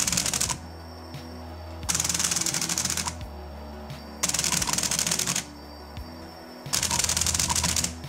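A Rubik's Cube solving robot's brushless drone motors turning the cube's faces in rapid succession. Each solve is a burst of dense, fast clacking lasting about a second, and there are three of them with short gaps between. Background music plays underneath.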